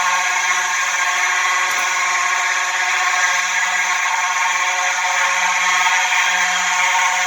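Two Simplex 4903 electromechanical horns sounding together, continuously and without a break, at nearly the same pitch.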